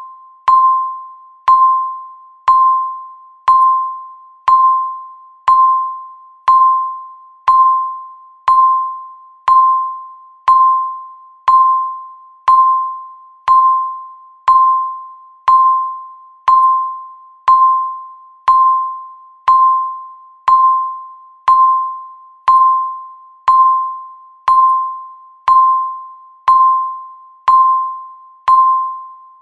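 Countdown timer's electronic beep sounding once every second, one short single-pitched ping each time that fades away quickly, marking each second ticked off.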